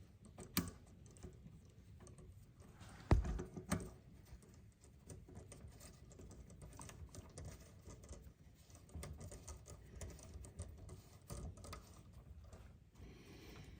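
Small metal clicks and taps of a rear bicycle derailleur being fitted and seated on the frame's hanger, with two sharper knocks about three seconds in.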